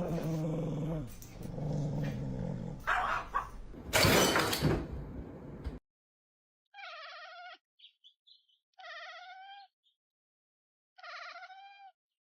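A dog whining and yipping in bending, high cries. Then, after a sudden cut, a cat meows three times, about one long meow every two seconds, with small chirps between.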